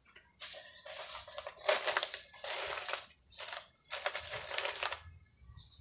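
A hatchet blade scraping and crunching into dry ground: about six rough strokes, each half a second to a second long.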